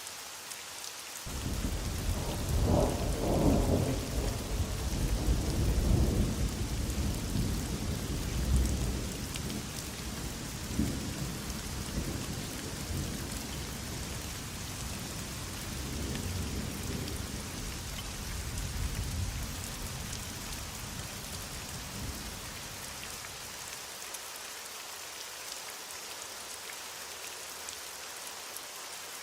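Heavy rain falling steadily, with a roll of thunder that breaks in suddenly about a second in, rumbles loudest for the next several seconds, then slowly dies away.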